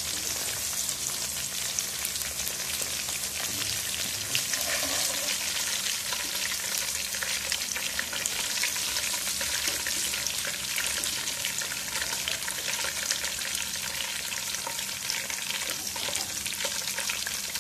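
Flour-coated chicken pieces deep-frying in hot oil in a wok: a steady sizzle with fine crackling. The pieces are cooked golden at the end of their first fry.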